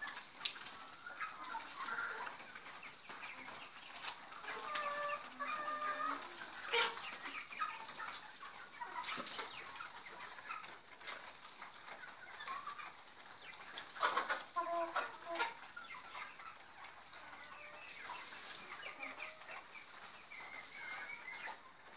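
A flock of three-month-old silver chicken pullets calling, with many short overlapping calls throughout and a few louder ones scattered in.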